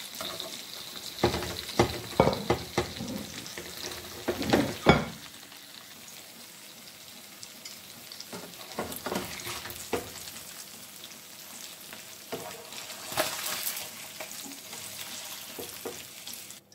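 Whole nola fish sizzling in hot oil in a non-stick frying pan, fully fried on both sides, with scrapes and knocks of a slotted spatula against the pan as the fish are lifted out. The knocks come thickest in the first five seconds, with a few more later.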